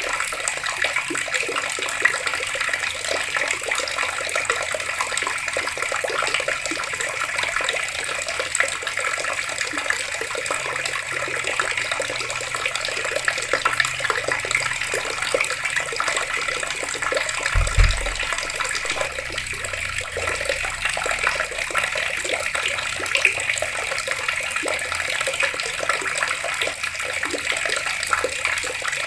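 Water taps running steadily, a continuous splashing of water. A single low thump about two-thirds of the way through.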